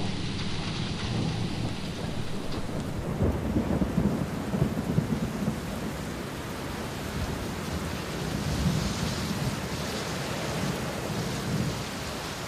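Steady rain with low rolling thunder, the rumble swelling a few seconds in.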